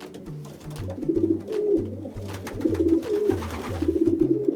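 Pigeon cooing: a string of low, throaty coos in phrases about a second apart, each phrase ending with a short bend in pitch.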